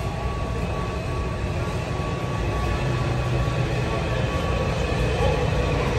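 Washington Metro 3000-series train approaching through the tunnel: a low rumble that grows steadily louder, with a whine starting to sound near the end as it nears the platform.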